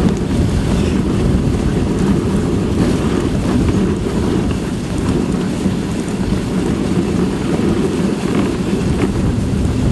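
Steady wind rumble on the microphone of a moving dogsled, over the hiss of its runners on packed snow as the husky team pulls.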